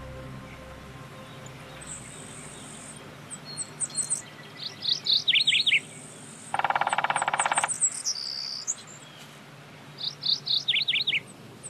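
Woodland birdsong: a bird twice gives a quick run of high, downward-slurred whistled notes, with thin high chips in between. Midway a buzzing trill lasts about a second.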